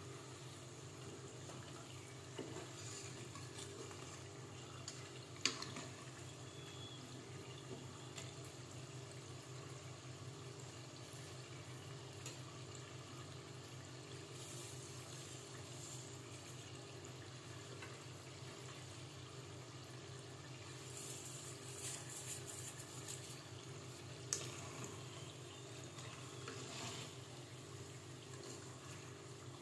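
Rice turon in spring roll wrappers deep-frying in a pot of oil, a steady sizzle, stirred with a wooden spatula that knocks sharply against the pot about five seconds in and again near the end. A steady low hum runs underneath.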